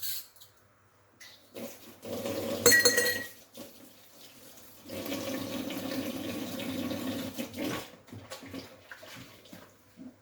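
Kitchen tap water running into a sink for about three seconds, after a loud clatter of dishes with a brief ring a few seconds earlier.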